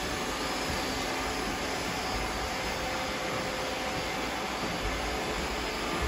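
Robot vacuum cleaners running together, a steady whirring drone of their suction fans and brushes.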